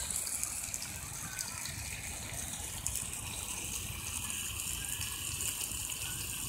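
Meat sizzling in a pan over a campfire: a steady hiss dotted with fine crackles, over a low rumble.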